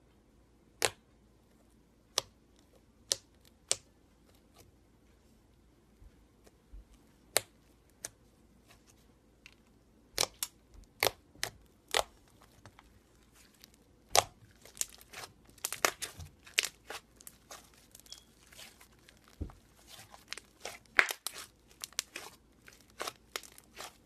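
Thick pink slime being poked and squished by fingers, giving sharp little pops and clicks: scattered at first, then coming thick and fast as a crackling run through the second half.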